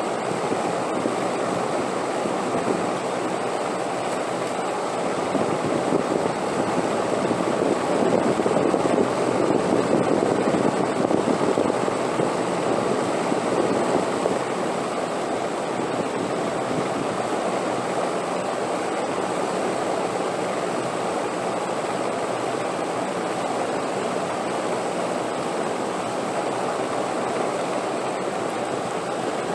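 Wind blowing steadily, swelling in a gust several seconds in and easing back about halfway through.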